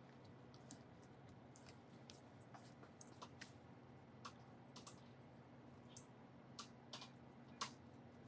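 Faint, irregular clicks and light taps of small repair tools handling an iPad Pro, over a low steady hum.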